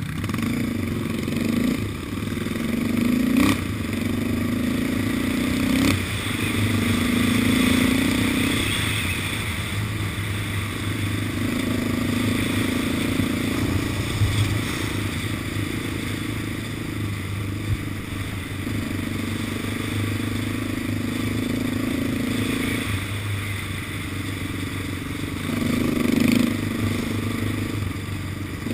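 Yamaha Raptor 700 quad's single-cylinder four-stroke engine running under load on a rough track, the throttle opening and closing in surges. There are two sharp knocks, about three and six seconds in.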